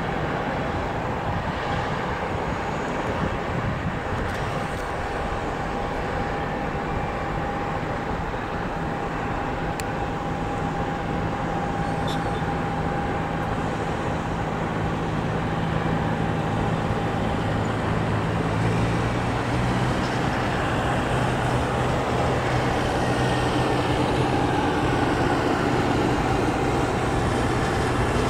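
Boeing 737-300's CFM56-3 turbofan engines on landing approach: a steady jet noise with a high whine. It grows louder in the second half as the airliner touches down and rolls out along the runway.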